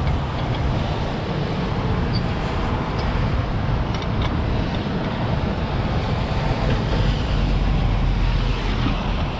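Steady freeway traffic noise from vehicles passing at speed, with a few light clicks over it.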